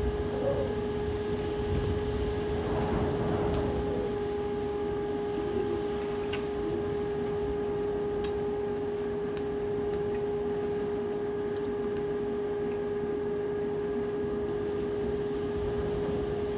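Strong cyclone wind blowing, a steady rush with a constant high tone held over it.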